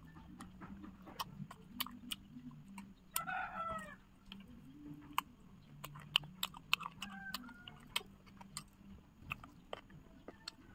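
Scattered sharp clicks and crunches of people eating fried chicken. A short falling call from a chicken comes about three seconds in, with fainter calls later, over a low steady hum.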